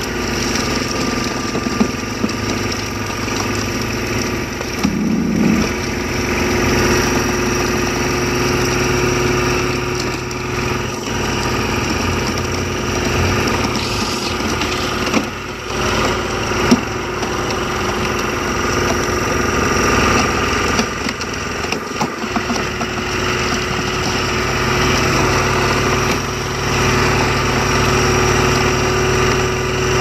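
Engine running steadily to drive a large hydraulic log splitter as it forces a big log through the splitting wedge, with a few sharp cracks along the way.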